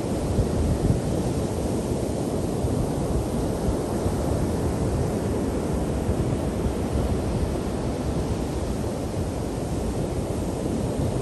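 Ocean surf breaking and washing up the beach: a steady rush of noise, heaviest in the low end, with wind buffeting the microphone.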